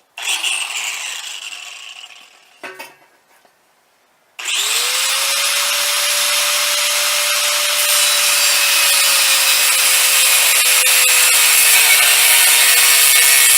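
Angle grinder cutting through an exhaust pipe. A short burst fades away over about two seconds, then about four seconds in a long continuous cut begins, the motor's steady whine under load sagging slightly near the end before it stops abruptly.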